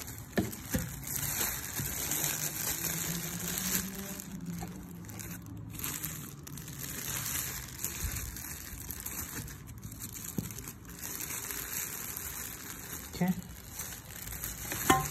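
Clear plastic bag crinkling and rustling as it is handled and pulled off a kettle, with a few sharper crackles.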